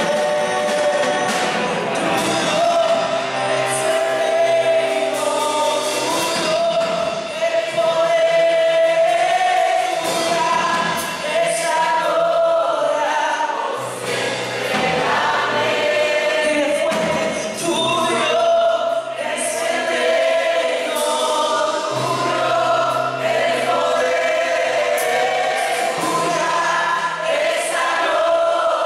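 Live church worship music: several voices singing together over a band, with long held bass notes underneath.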